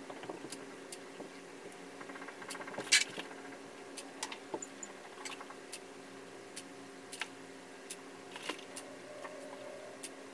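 DSLR camera shutter clicking repeatedly as single shots are taken, about fifteen clicks at uneven intervals, the loudest about three seconds in.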